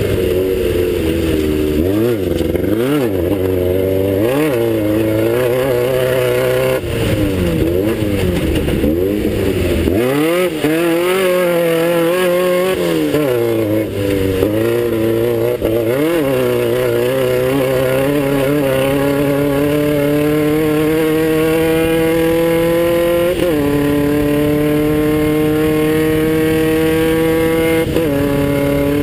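Class 9 off-road race buggy's air-cooled Volkswagen engine under race load. For the first half its revs rise and fall rapidly, over and over. It then climbs in a long steady pull, broken by two upshifts near the end, each a sudden drop in pitch.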